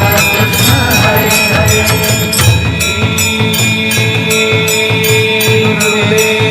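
Devotional aarti music with a bell struck in a steady rhythm over held tones.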